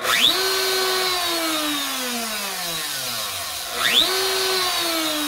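DeWalt 611 compact router, speed dial on 4, started twice about four seconds apart: each time the motor whines up in pitch within a fraction of a second, then slowly winds down in pitch as it coasts.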